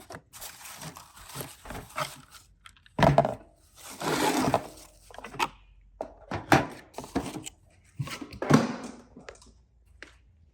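Plastic car parts and their packaging being handled on a work surface: scattered knocks and clicks with short rustles of wrapping.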